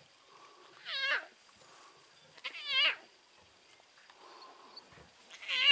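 Tiny lion cub mewing three times, short cries each falling in pitch, about two seconds apart: a young cub's contact call for its mother.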